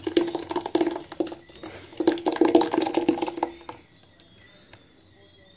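A thick blended mixture poured in a stream from a blender jug into a steel pot of liquid, splashing and gurgling as it lands. The pouring stops about three and a half seconds in.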